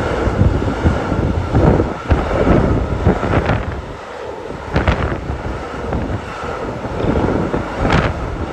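Freight train of covered hopper wagons rolling past on the rails, with a steady rumble and a few sharp knocks, heavily buffeted by wind on the microphone.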